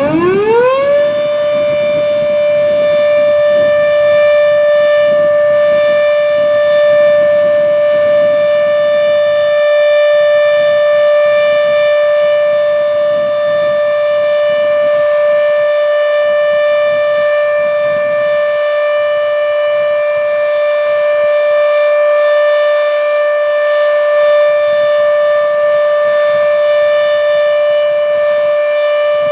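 H.O.R. Siro-Drone outdoor warning siren winding up: its pitch climbs fast over about the first second, then settles into a loud, steady tone for the full alert signal.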